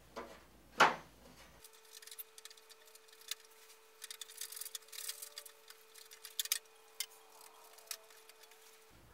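Hard plastic toy parts of a G.I. Joe Defiant gantry being handled and pried apart: a sharp knock about a second in, then a run of quick, irregular plastic clicks and rattles.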